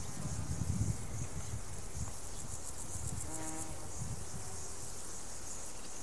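Crickets chirping in a fast, steady, high pulsing trill over a summer field, with low wind rumble on the microphone that is strongest in the first second.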